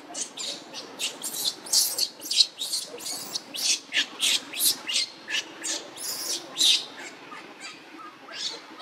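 Newborn macaque crying: a rapid run of short, shrill, high-pitched squeals, about three a second, easing off briefly near the end before starting again. It is an infant's distress call for its mother.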